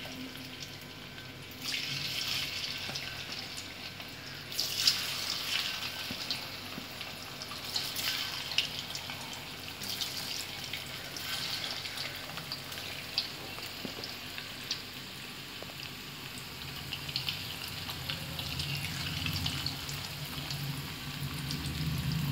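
Hot oil in a wok sizzling and bubbling as spice-battered cauliflower florets are dropped in one by one for deep frying. The sizzle surges afresh each time pieces go in, around 2, 5, 8 and 10 seconds, with small crackles and pops throughout.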